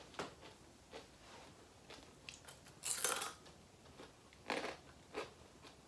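A person eating crunchy food close to the microphone: about six separate crunches and bites with quiet between them, the loudest about three seconds in.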